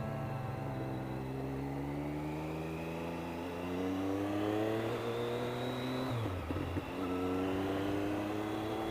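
Motorcycle engine accelerating, its revs climbing steadily. About six seconds in there is a quick upshift, after which the revs climb again.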